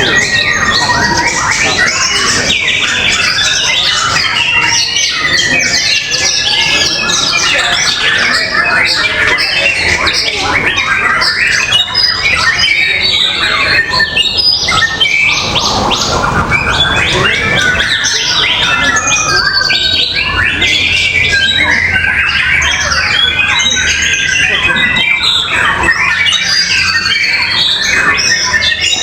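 Many caged songbirds singing at once in a contest, a dense, loud tangle of overlapping chirps, trills and harsh calls with no break.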